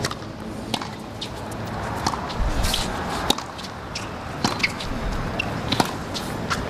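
Low murmur of a tennis stadium crowd between points, with scattered sharp ticks, more of them in the second half, of a tennis ball being bounced on the hard court before a serve.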